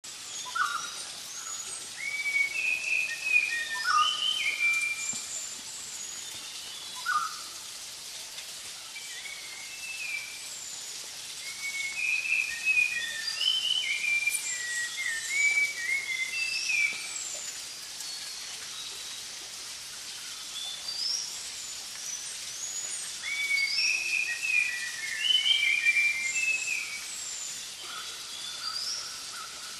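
Wild birds calling in bouts of short, quick chirping notes over a steady background hiss, with a steady high note coming in near the end.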